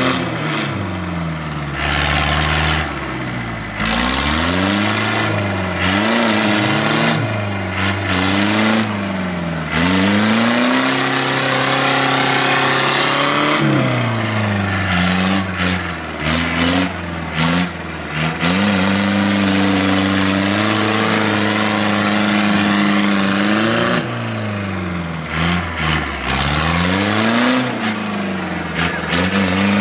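A small compact tractor's engine revving up and down over and over as it labours through deep mud, its pitch climbing and dropping every second or few seconds.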